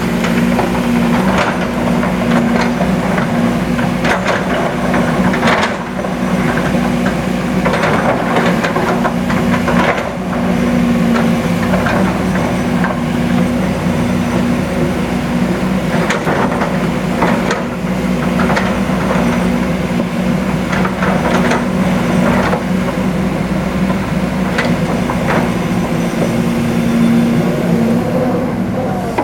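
Heavy diesel engine running steadily at a constant pitch, with repeated irregular knocks and clatter of stone striking metal throughout.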